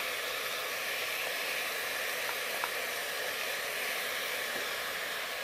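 Mixed vegetables frying in oil in an open aluminium pressure cooker on a gas stove, a steady sizzling hiss, with a couple of faint light ticks a little before the middle.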